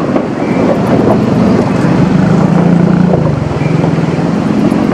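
Motorcycle engine running at low speed, its pitch dropping slightly about three seconds in.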